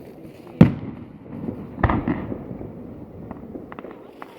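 Aerial fireworks shells bursting: a sharp, loud bang about half a second in, a second bang about two seconds in followed by crackling, then a few faint crackles near the end.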